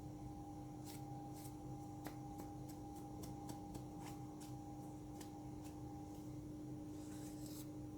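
A brush sweeping dust from inside an opened laptop, faint short scratchy strokes a second or so apart, over a steady background hum.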